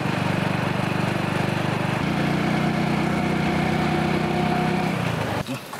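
Small commuter motorcycle's engine running steadily as it rides along, its note shifting slightly about two seconds in; the sound cuts off abruptly near the end.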